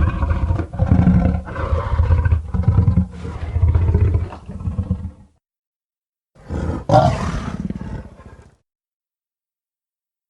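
Baragon's monster roar sound effect. A series of growling roars runs for about five seconds, then breaks off. After a short pause comes a second, shorter roar whose pitch sweeps up and down.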